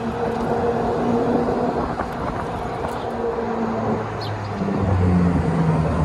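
Golf cart driving along a paved road: a steady motor hum over tyre and road noise, its tone shifting lower about five seconds in.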